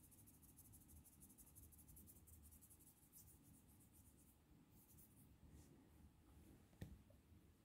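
Near silence with faint, rapid, fine scratchy ticking for the first few seconds, thinning to a few scattered ticks, then one soft knock nearly seven seconds in.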